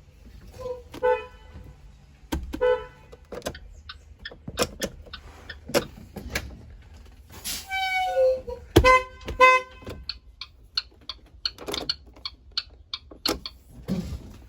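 School bus horn honking: two short beeps in the first three seconds, a longer honk that drops in pitch around the middle, then a quick run of three short honks. Many sharp clicks and knocks are scattered among the honks.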